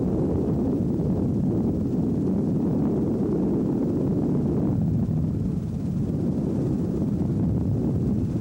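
Robinson R22 helicopter in flight, heard from on board: a steady low rumble of its piston engine and rotor.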